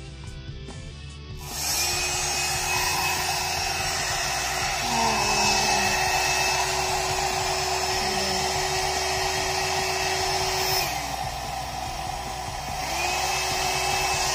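A 4-in-1 hot air brush hair dryer switches on about a second and a half in and blows steadily, a rush of air with a motor whine over it. Around eleven seconds in it drops quieter for about two seconds, then picks up again. Before it starts, background guitar music plays.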